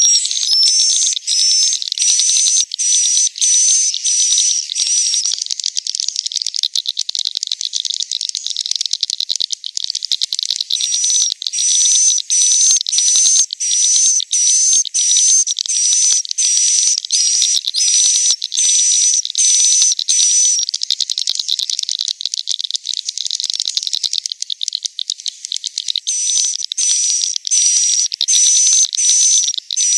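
Edible-nest swiftlets' roosting calls (the 'suara inap' used to lure swiftlets into a swiftlet house): dense high-pitched twittering, broken by runs of sharp repeated chirps about two a second, with short stretches of plain twittering in between. Recorded inside a swiftlet house.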